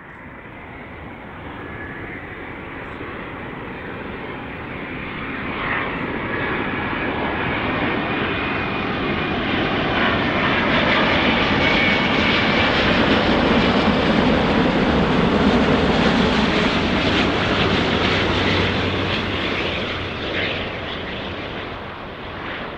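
Airbus A350-900's Rolls-Royce Trent XWB turbofan engines on final approach, a jet engine noise that grows steadily louder as the airliner passes low and close, with a thin high whine in the first half, then eases off over the last few seconds as it moves away.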